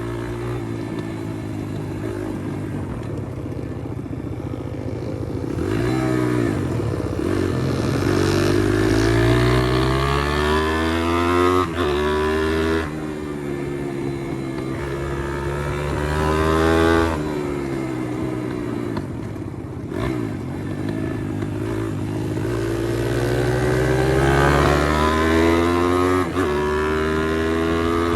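Pit bike's single-cylinder engine under way, revving up and shifting through the gears several times, its pitch climbing and then dropping at each shift.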